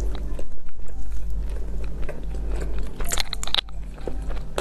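Close-miked chewing and biting of a bite of cake, wet mouth clicks over a low steady hum, with a cluster of crisp crunches about three seconds in.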